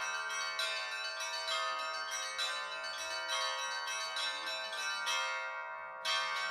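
Russian Orthodox bell ringing on a set of bells, many quick overlapping strikes with the tones ringing on together. There is a brief lull about five and a half seconds in, then a loud fresh strike.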